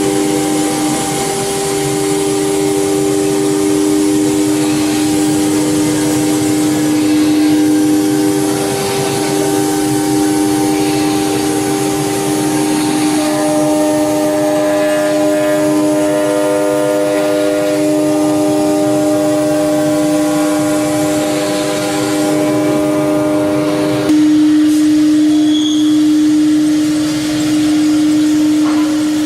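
9 kW HQD spindle of a CNC router running at a steady high pitch while machining a mold, with cutting noise beneath. The mix of tones shifts about halfway through and again near the end, where it gets a little louder.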